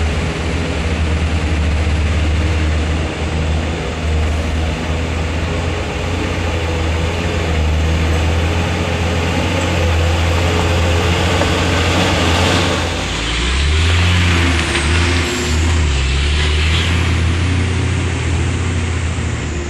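Hino 500 dump truck's diesel engine pulling through mud as the truck drives slowly past. It is loudest about twelve seconds in as the truck passes close, with a rise in pitch, then it drops back to a steady run.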